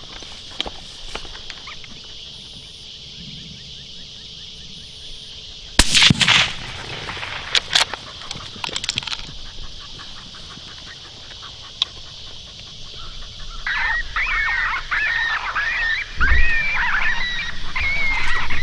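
A suppressed .22-250 rifle shot cracks about six seconds in, the loudest sound here, followed by a few lighter clicks. Near the end comes a run of high, wavering canine yelps, with a dull low thump among them.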